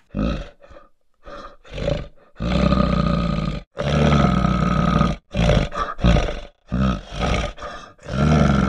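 Recorded animal roaring sound effect: a run of loud roars and growls of uneven length, the longest about a second and a half, stopping abruptly at the end.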